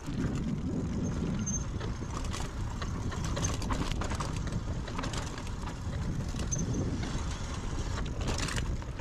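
Mountain bike rolling over a dirt singletrack trail: a steady rumble from the tyres and the ride, with frequent short rattles and clicks from the bike.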